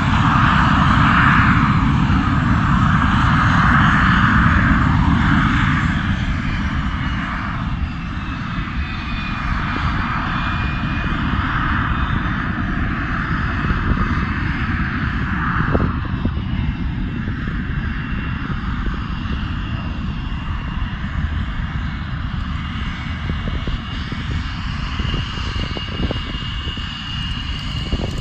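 Twin Rolls-Royce Avon turbojets of an English Electric Lightning running at taxi power: a steady jet rumble with a thin whine. It grows fainter after about six seconds as the jet taxis away.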